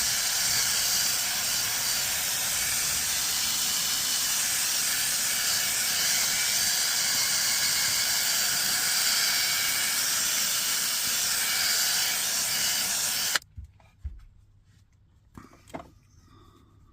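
A loud, steady hiss of rushing air that cuts off abruptly near the end, followed by a few faint knocks and light rubbing.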